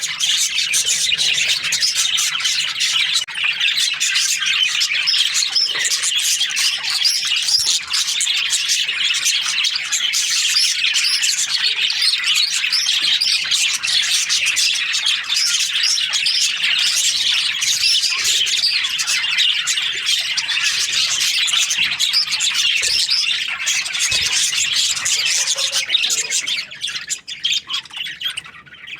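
A colony of budgerigars chirping and chattering together, a dense unbroken mass of many overlapping high calls that thins out and quietens near the end.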